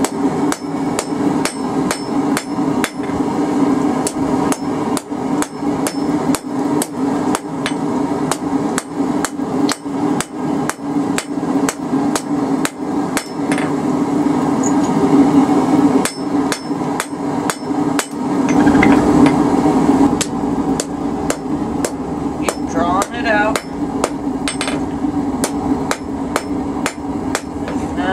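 Hammer blows on a handled blacksmith's chisel set on red-hot steel over an anvil: a quick, even run of sharp metallic strikes, about three a second, cutting detail lines into a forged feather. A steady low hum sits under the blows.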